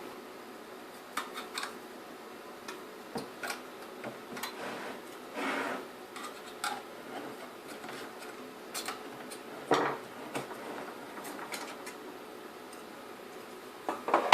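Scattered small clicks, taps and light knocks of hand tools and screws on the metal casing of a car satellite navigation unit being dismantled, with one louder knock about ten seconds in, over a faint steady hum.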